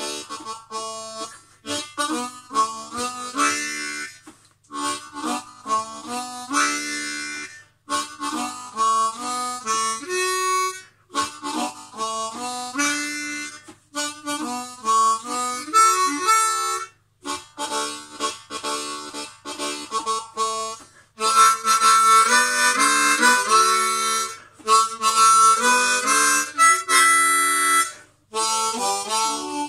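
Solo blues harmonica, played cupped in the hands, in phrases broken by short breaths. It gets louder and higher for a stretch in the second half.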